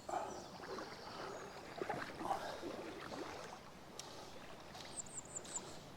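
River water sloshing and splashing irregularly around an angler wading in the river, strongest in the first few seconds.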